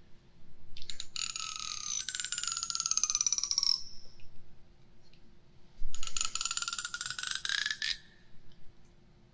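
Teeth of a comb run past the binaural microphone's ear in two long strokes, each a fast run of clicks that blends into a croaking buzz. The pitch of the first stroke slides down as it goes.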